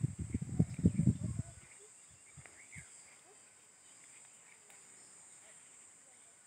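Steady high-pitched drone of insects in a dry field. For the first second and a half, loud irregular low buffeting on the microphone drowns it out.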